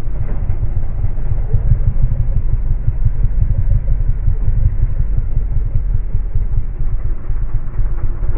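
Yamaha R6 inline-four engine idling with a steady low rumble while the bike stands still.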